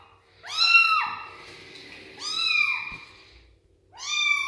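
A young kitten meowing: three high-pitched meows, each rising and falling, about one and a half seconds apart.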